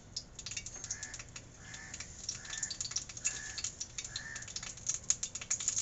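Hot cooking oil in a kadhai crackling and spitting with many small, quick ticks as it heats. Five short high notes about a second apart sound through the middle.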